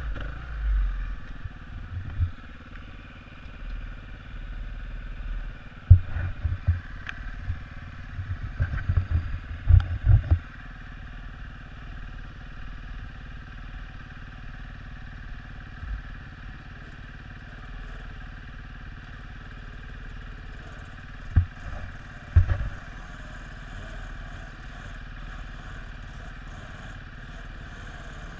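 Dirt bike engine running under a helmet camera while riding a rough forest trail, with irregular knocks and jolts for the first ten seconds. After that the engine runs steadily and evenly, and there are two thumps a little after twenty seconds.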